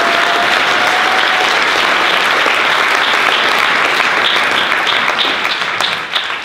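A roomful of people applauding: dense, steady clapping that thins out and fades over the last second or so.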